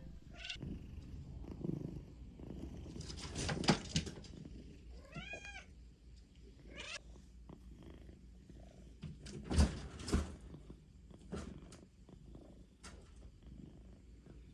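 Domestic cat purring steadily, with a single short high meow that rises and falls about five seconds in, and scattered soft knocks and rustles.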